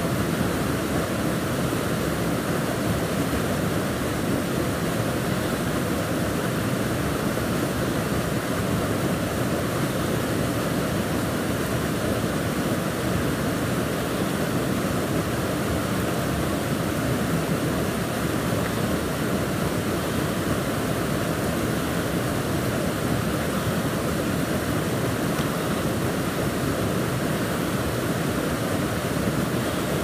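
Small waterfall and stream rushing steadily into a pool, a continuous even roar of white water.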